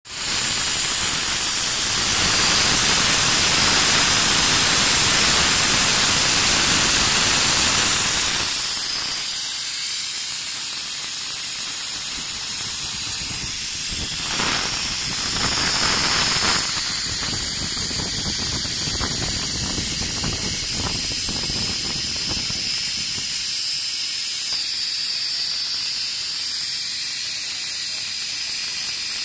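Compressed gas hissing at the hose fitting of a large pneumatic cylinder. The hiss is loud for about the first eight seconds, then drops to a quieter steady hiss, with two short louder surges about halfway.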